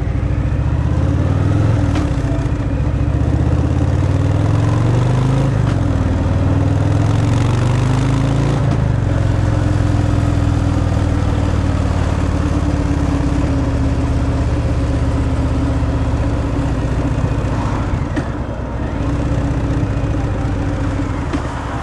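Harley-Davidson Fat Boy's Milwaukee-Eight 114 V-twin on its stock exhaust, running under way: the engine note climbs, drops and climbs again in the first few seconds as it pulls through the gears, then holds steady at cruising speed, with wind noise.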